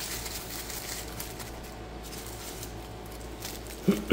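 Light rustling and small handling noises of packaging and model parts being unwrapped, with a brief louder sound that falls in pitch right at the end.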